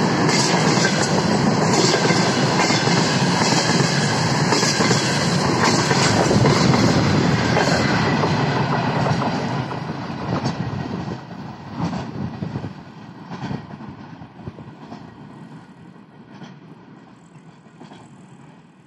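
Container freight train's flatcars rolling past with a steady clickety-clack of wheels on the rails. About ten seconds in, the noise starts to fade as the end of the train moves away, leaving fainter, scattered clacks.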